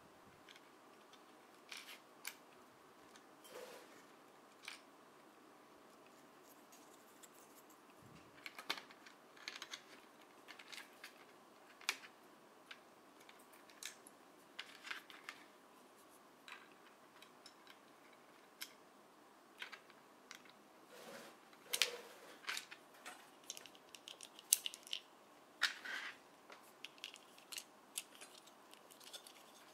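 Small hard-plastic parts of a snap-together Thomas the Tank Engine toy kit being handled and pressed together: scattered, irregular clicks and taps, busier in the second half as the wheel axles are fitted into the chassis.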